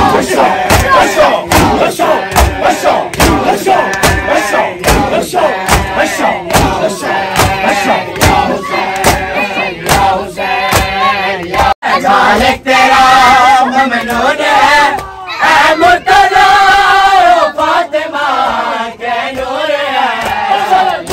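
Shia Muharram matam: a crowd of men beating their chests in unison, about two slaps a second, under a chanted noha. About twelve seconds in the beating largely stops and the crowd carries on with a drawn-out chant.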